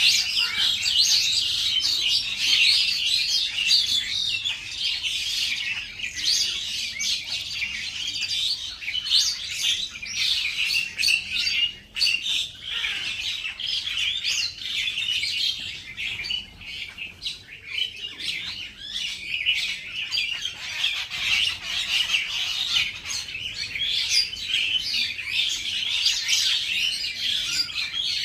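A flock of small birds chirping continuously, many calls overlapping into a dense, unbroken chatter.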